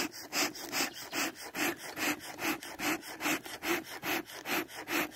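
Bee smoker bellows pumped steadily, about two and a half puffs of air a second, fanning the burning cardboard, leaves and freshly added wood pellets in the fire pot to get them going.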